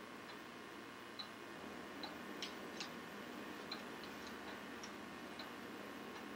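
Pendulum wall clock ticking faintly, about one tick a second, over a low steady room hiss.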